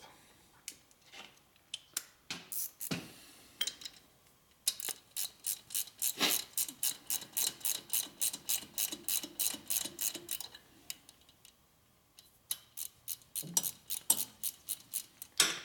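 Hand ratchet clicking as it runs down the lower rocker housing bolts on a Harley Twin Cam 88 cylinder head. A few separate clicks come first, then a long, even run of about six clicks a second through the middle, then more short runs of clicks near the end.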